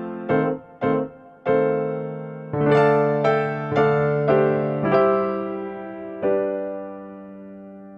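Background music: a piano-like keyboard plays a phrase of struck notes, ending on a held chord about six seconds in that slowly fades away.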